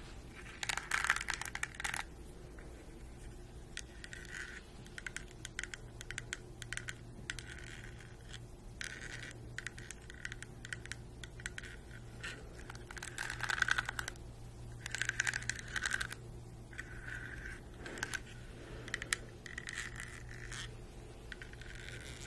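Compact plastic detangling hairbrush handled close up: irregular scratchy strokes of its bristles and nails, mixed with light clicks and taps on its plastic back.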